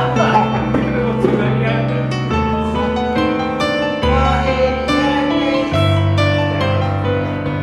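Background music led by piano or keyboard, with low held bass notes that change every second or two.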